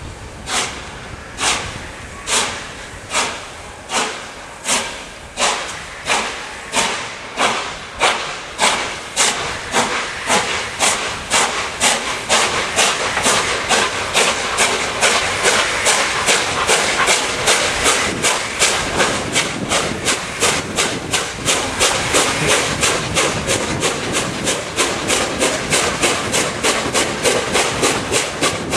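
Steam locomotive 60163 Tornado, a three-cylinder Peppercorn A1 Pacific, starting away from a stand, its exhaust beating from the chimney. The chuffs come about a second apart at first and quicken steadily to several a second, growing louder as it gains speed.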